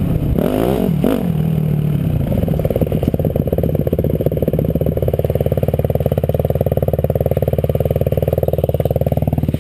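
Dirt bike engine heard from the bike itself, revving up and down over the first second or two, then settling into a steady low note. The revs rise briefly near the end.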